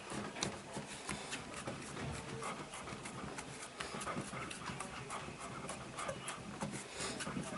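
Hands working on bare skin during a massage or chiropractic session: irregular light slaps, pats and rubbing, several a second.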